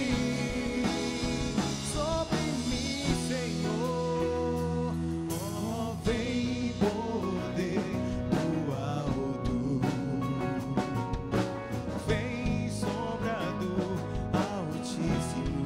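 A song with a singer's voice over a band: drums, guitar and sustained chords.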